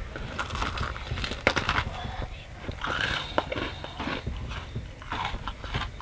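A person biting into and chewing a s'more made with an Oreo cookie and a Peeps marshmallow: irregular small crunches and clicks of chewing.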